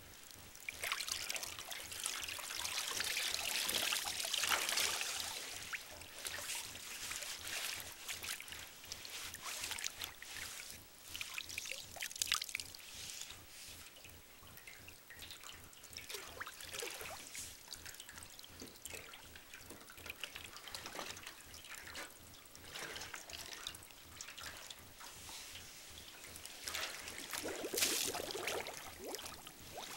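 Water sloshing, splashing and trickling in a metal tub as a person in a soaked down jacket and ski clothes moves about in it. It is louder in the first few seconds and again near the end as they lie back in the water.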